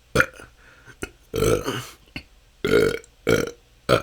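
A person burping again and again: about five burps in quick succession, most short and sharp, one longer and drawn out near the middle. It is natural, continuous belching from a build-up of swallowed or stored gas, which the burper says goes on for hours.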